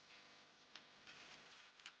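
Near silence with a few faint, short ticks, about three-quarters of a second in and again near the end.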